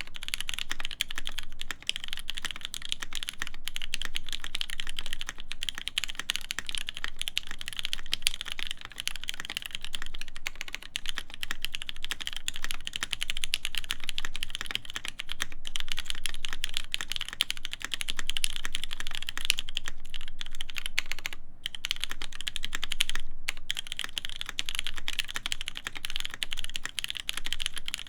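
Steady, fast typing on a custom mechanical keyboard with lubed vintage Cherry MX Black linear switches, GMK keycaps and a forged carbon plate, with two short pauses a little after the middle.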